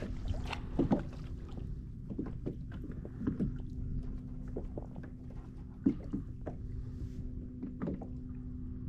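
Water washing against a fishing kayak's hull, with scattered small clicks and knocks from the rod and reel being handled, under a faint steady hum.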